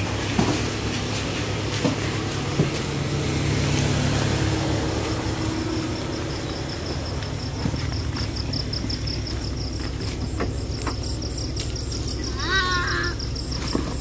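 Car engine idling steadily, with a few handling knocks early on. A fast, even, high-pitched chirping comes in about halfway through, and a brief animal call sounds near the end.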